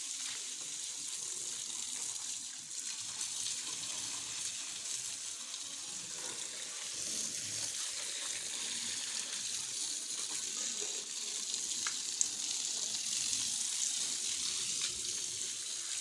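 Water from a garden hose spraying steadily against the tyres and bodywork of a JCB 4CX backhoe loader, a continuous hissing splash, with one short tick about twelve seconds in.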